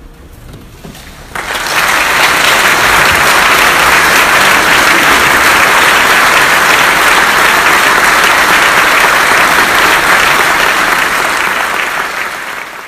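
Audience applauding: a large crowd breaks into clapping about a second and a half in, holds it steady and loud, and fades at the very end.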